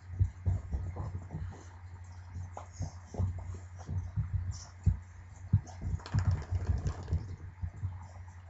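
A small dog drying herself after a bath by rubbing and rolling her body on towels on the floor: irregular soft thumps and cloth rustling, with a busier scrubbing stretch about six seconds in.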